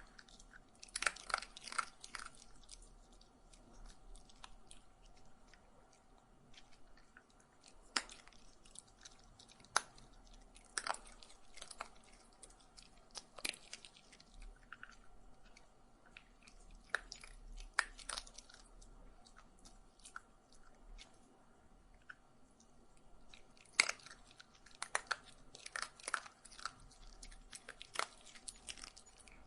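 A dog eating, chewing its food in irregular bouts of sharp clicks and bites, with short pauses between bouts.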